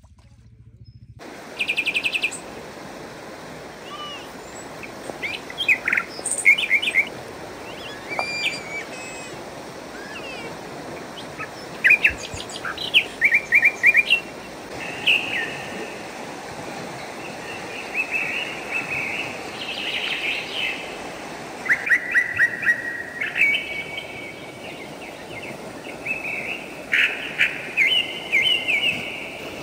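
Small songbirds chirping and trilling, several short calls overlapping, over a steady outdoor background hiss; it starts about a second in.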